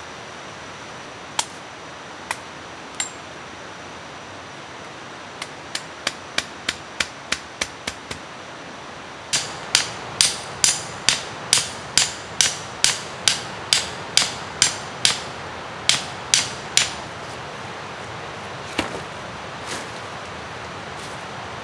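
Repeated sharp hammering knocks of wood striking wood, as a stake or stick is pounded. First a few single knocks, then a quick run of about three a second, then a longer, louder run of about two a second that stops, with two last knocks near the end. A steady hiss runs underneath.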